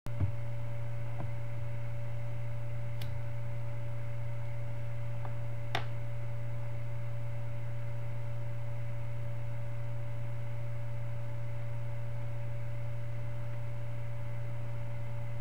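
Steady electrical hum with a low drone and a constant higher tone above it, unchanging throughout. A couple of faint clicks come about three and six seconds in.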